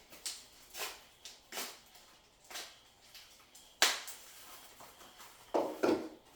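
Hands handling packaging: a run of short rustles and taps, a sharp click about four seconds in, and a louder burst of handling noise near the end.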